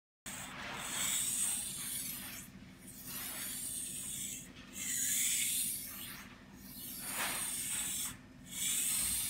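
Japanese knife blade drawn across a whetstone in long, even strokes, each sweeping the whole blade in one pass. There are about five strokes, each around two seconds long with a brief break between them.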